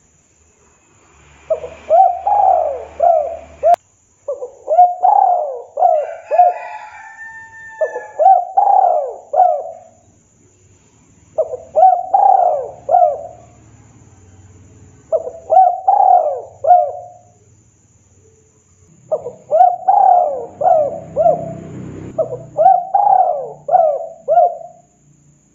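Spotted dove (tekukur) cooing. It repeats a short phrase of four or five quick notes about seven times, with pauses of a second or two between phrases.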